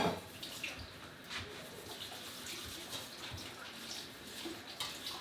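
Water running steadily from a tap, with a sharp knock right at the start and a few light clicks.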